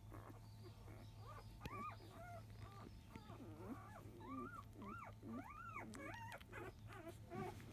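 Five-day-old Labrador retriever puppies squeaking and whimpering as they nurse: a run of short, high calls that rise and fall in pitch, starting about a second and a half in and coming thick and fast near the middle. A faint steady low hum runs underneath.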